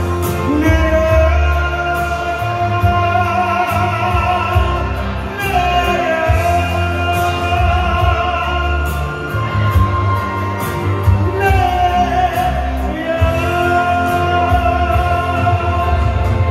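Live band music: long held melody notes that slide down into new notes every few seconds, over a steady bass line and a regular drum beat.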